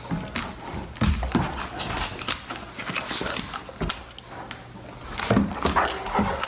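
A large dog snapping at soap bubbles: irregular clicks and knocks of its jaws and feet, with a louder cluster about five seconds in.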